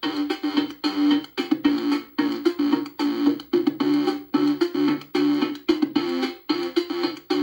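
Commodore 64 SID chiptune music played through a SIDKick Pico emulating the 8580 SID chip: a synthesized bass line and lead melody over drum hits in a steady beat, sounding clean and good after the bus-timing fix.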